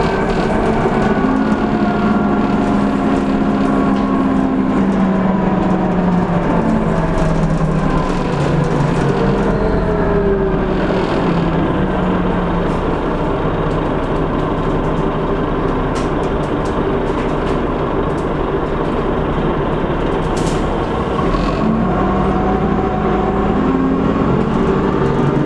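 Dennis Trident bus engine running under way with a turbocharger whistle. The engine note and whistle fall away about a third of the way in and climb again near the end as the bus eases off and then pulls away.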